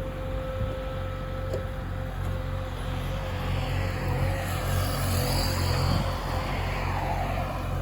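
A vehicle engine running steadily, swelling a little louder in the middle and easing off near the end.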